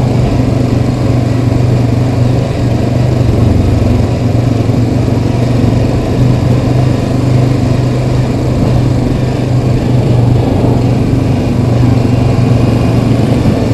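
Single-cylinder four-stroke ATV engine pulling at a steady cruising speed on a dirt trail. The note holds steady with a slight dip about three seconds in.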